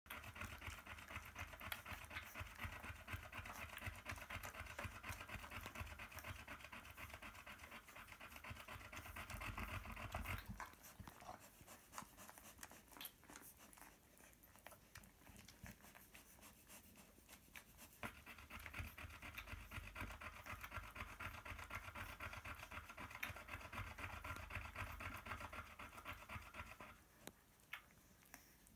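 Nursing Airedale terrier mother panting rapidly and steadily. The panting comes in two long spells, eases off from about ten to eighteen seconds in, and stops abruptly near the end.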